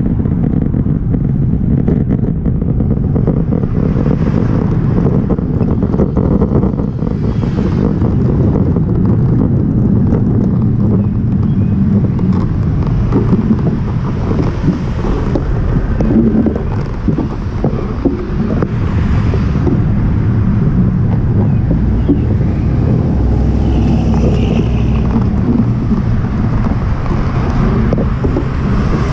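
Steady low wind rumble on a bike-mounted camera's microphone while cycling, mixed with car traffic on a busy city street.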